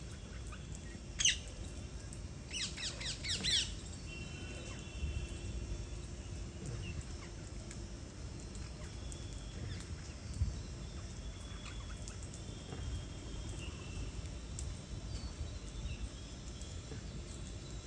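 Birds calling: a single sharp call about a second in, then a quick run of falling chirps, with scattered fainter calls afterwards over a steady low rumble.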